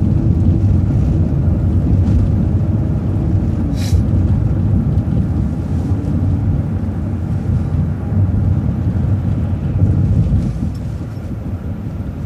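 City transit bus under way, heard from inside: a steady low rumble of engine and road noise, with one sharp click about four seconds in.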